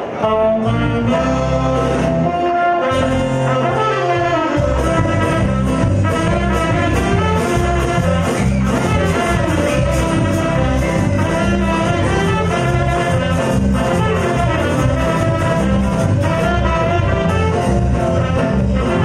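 Live band playing, with saxophones carrying the melody over keyboard, guitar and drums. It opens on held chords, and a steady beat comes in about four and a half seconds in.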